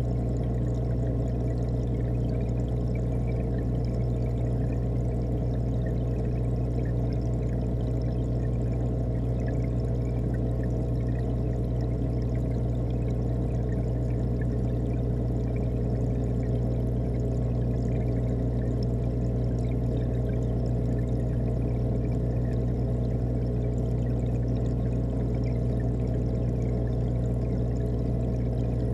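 The inside of a running aquarium heard underwater through a sealed camera housing: a steady low hum with an even rush of circulating water and bubbles.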